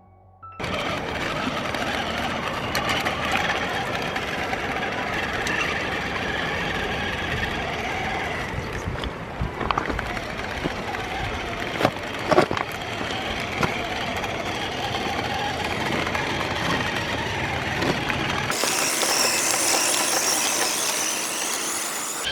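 Traxxas TRX-4 RC crawler on the Traxx all-terrain track set driving: electric motor whirring and tracks clattering, with a few sharp knocks midway, over background music. Near the end the sound changes abruptly, the low part dropping away and a brighter hiss taking over.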